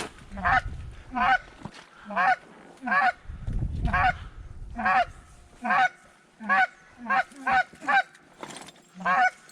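Duck call blown in a series of loud, nasal quacking calls, often in pairs, about one to two a second, to turn circling ducks toward the decoys. Low wind rumble on the microphone twice, about half a second in and around the middle.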